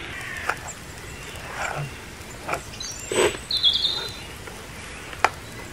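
A knife tapping and scraping on a plastic chopping board as a cooked steak is cut: a few scattered clicks and knocks, the sharpest near the end. A short high chirp comes about halfway through.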